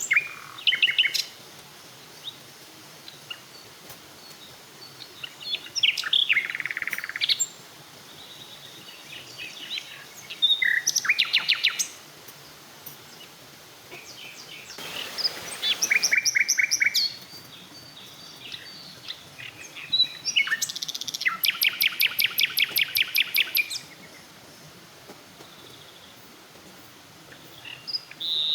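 Wild songbirds singing in the forest: separate phrases of chirps and rapid trills every few seconds, the longest a fast trill of about ten notes a second lasting some three seconds near the end. A brief rustling hiss comes about halfway through.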